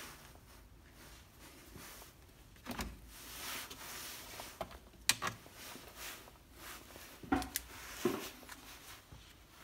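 Paper notebook being handled and its pages leafed through, a soft rustle, with a few sharp light clicks and knocks of small objects on the workbench.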